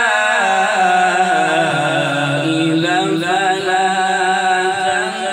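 A man's voice reciting the Quran in melodic tajweed style, drawing out long held notes that waver and slide gently in pitch.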